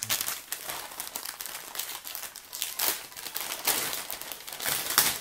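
Thin plastic packaging crinkling and crackling as it is handled and turned over in the hands, with sharper crackles about three seconds in and near the end.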